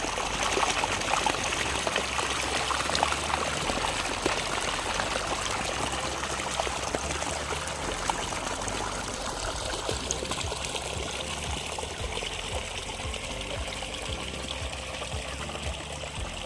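Chicken curry in a kadai, with water just added for the gravy, sizzling and bubbling with a steady crackly hiss that eases slowly toward the end.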